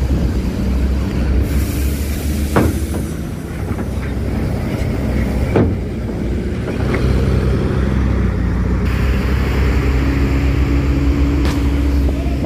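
Tour bus diesel engine running as the bus drives off the ferry, a steady low rumble, with two sharp clunks about two and a half and five and a half seconds in.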